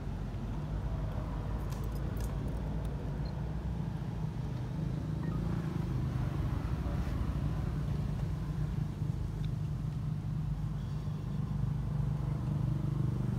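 A motor engine running steadily at a low hum, slightly louder toward the end, with a few faint clicks about two seconds in.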